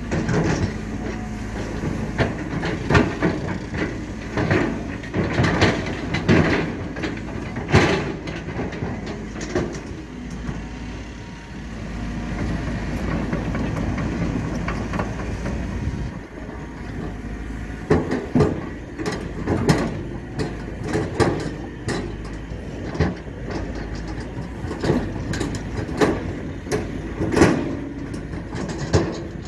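Heavy diesel earthmoving machinery running steadily, with frequent metallic clanks and knocks as it works soil and rock. The clanks thin out to a steadier engine sound partway through, then pick up again.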